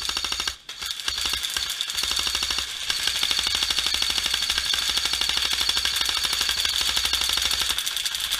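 Airsoft rifle fire on full auto: a rapid, even rattle of shots, a short burst, a brief break, then continuous firing from about a second in.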